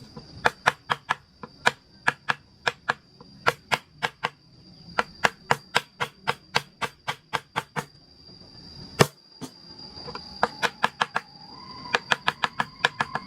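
A mallet tapping a wood carving chisel in quick irregular strikes, two to four a second, with one harder blow about nine seconds in.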